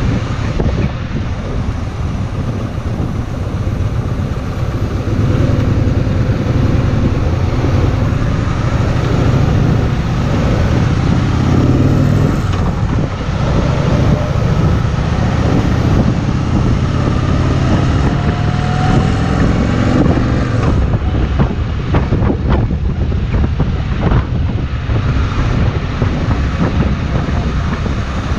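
Kawasaki VN2000 V-twin motorcycle engine running steadily on the move, with wind rushing over the microphone; the wind buffets harder for a few seconds about three-quarters of the way through.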